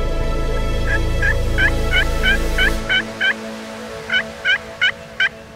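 Wild turkey calling: two runs of short, sharp yelping notes, about three a second, with a pause between the runs. A low rumble under the first half cuts off about halfway through.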